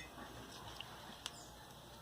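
Quiet room tone with a couple of light, sharp clicks from small parts being handled at the fan motor, the clearest a little past the middle.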